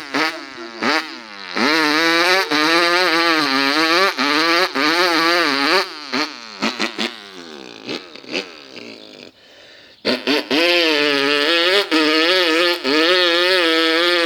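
A person imitating a motocross bike's engine with the voice and lips, in buzzing revs whose pitch wobbles up and down. After a few short blips comes a long rev of several seconds, then a lull with a few brief bursts, and another long rev starts about two-thirds of the way in.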